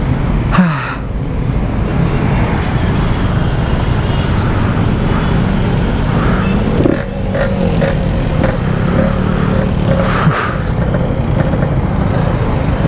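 Yamaha RX-King's 135 cc single-cylinder two-stroke engine running while riding, through a standard-style aftermarket exhaust. The revs drop about half a second in, hold fairly steady in the middle and drop again near the end.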